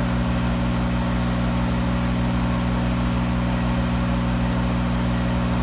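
Monarch 10EE toolroom lathe running, giving a steady low hum with several even tones that does not change.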